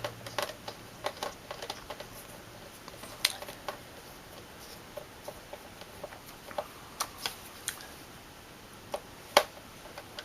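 Small screwdriver working a screw out of the hard-drive cover plate of an all-in-one computer: scattered light clicks and taps, with one sharper click about nine seconds in.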